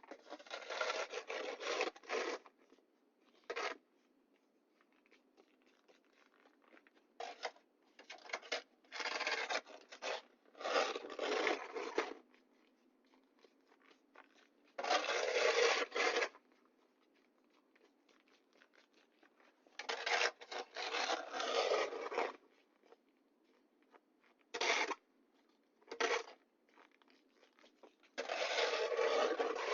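Snow shovel scraping and pushing snow across pavement in repeated strokes of one to two seconds, with pauses between them and a few short scrapes.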